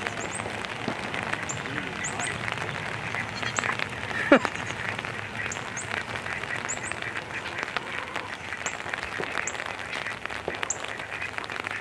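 Outdoor ambience in a goat pen: faint high chirps recur every second or so over a steady background, with one short, sharp call about four seconds in.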